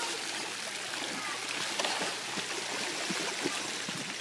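Splash pad water spraying and running across wet concrete: a steady rushing hiss.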